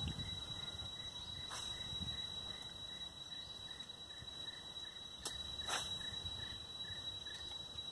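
Steady high-pitched insect drone, with three sharp clicks: one about a second and a half in and two close together a little past five seconds.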